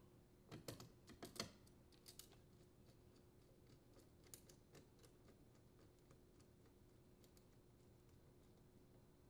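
Small sharp clicks and taps of metal on metal as the green grounding wire and its screw are handled on the sheet-metal terminal box and a nut driver is set onto the ground screw. The loudest run of clicks falls between about half a second and a second and a half in, with a few more around two and four and a half seconds, then only faint ticks.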